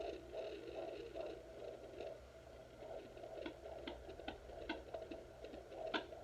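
Home fetal Doppler (Baby Doppler) playing through its speaker while the probe searches the belly: a faint, muffled whooshing that swells and fades in quick soft pulses, broken by irregular scratchy clicks, the sharpest about six seconds in.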